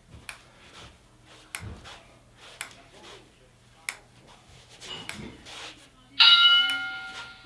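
Light clicks and rustles of a resistance band's clip and ankle strap as the leg works against the band. About six seconds in comes a loud electronic beep holding one steady pitch for just over a second, signalling the end of the set before the switch to the other leg.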